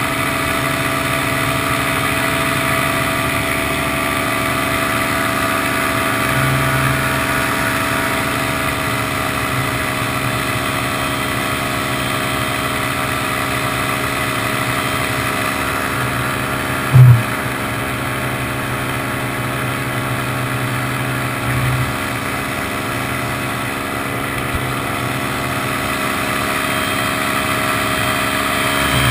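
Paramotor engine and propeller running steadily in flight. A brief loud thump comes a little past halfway, and a smaller one a few seconds later.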